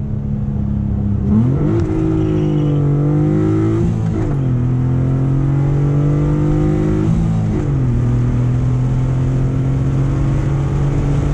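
Honda J30 3.0-litre V6 with a J35 intake manifold spacer, heard from inside the cabin under hard acceleration. The engine note jumps up about a second in and climbs. It drops at an upshift about four seconds in, climbs again, drops at a second upshift around seven and a half seconds, and then climbs slowly once more.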